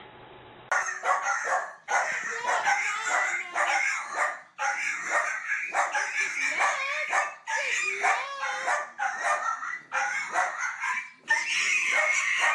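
A dog vocalising in a long run of short, pitched barks and yelps, about one a second, starting about a second in.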